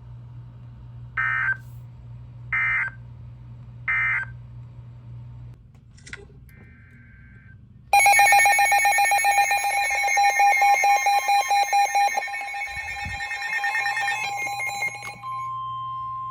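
Weather radio alert tones: three short data bursts of the EAS digital code in the first few seconds, then a loud, rapidly pulsing electronic alert with several tones lasting about seven seconds, then a steady single alarm tone near 1 kHz starting near the end, all over a low hum.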